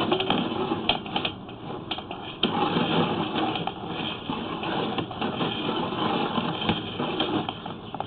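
Sewer inspection camera and its push cable being worked through a PVC sewer line: a steady mechanical rattle with irregular clicks, getting louder about two and a half seconds in.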